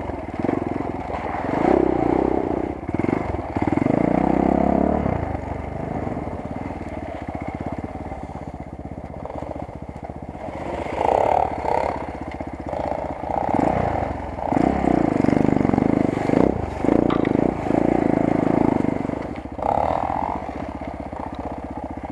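Enduro motorcycle engine running close up, steady at low revs with repeated surges of throttle, most of them in the middle and latter part.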